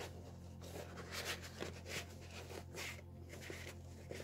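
Soft rustling and rubbing as a thick foam-rubber pad is pushed and pressed down into a sewn seat cover, in several brief scuffs, over a faint steady low hum.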